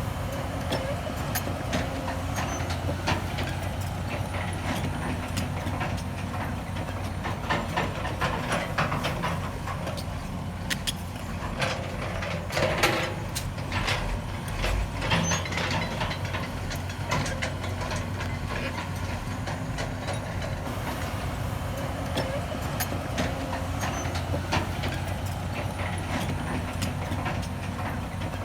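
Heavy construction machinery's diesel engine running steadily under a recovery pull, with sharp knocks and clanks scattered through it, loudest about halfway.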